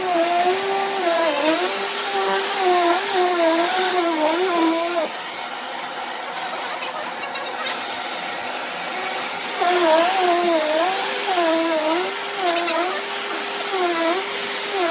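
Shark Navigator Lift-Away upright vacuum running while it is pushed back and forth, its motor hum rising and dipping in pitch with each stroke over a steady rush of air. For a few seconds in the middle the hum drops out, leaving only the rush of air, then it comes back.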